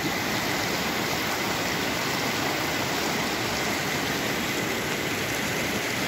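Glacier-fed mountain stream rushing over rocks: a steady, even rush of water close by.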